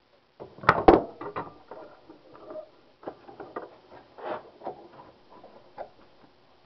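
A 2-inch barn auger bit in a hand brace boring through oak, the wood shaving off in irregular creaks, clicks and crackles, with a louder cluster of knocks about a second in.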